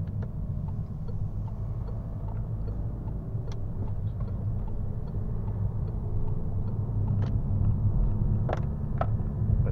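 Inside the cabin of a Citroën Berlingo with the BlueHDi 130 diesel, low engine and road rumble, gradually growing louder as the van speeds up onto the motorway. A few light clicks sound, mostly in the second half.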